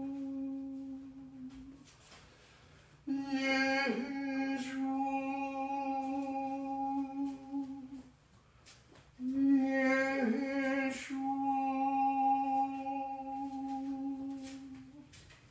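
A man's voice intoning long, steady notes on a single pitch during ritual chanting. The first note dies away in the opening seconds, then two more are held for about five and six seconds, starting about three and nine seconds in.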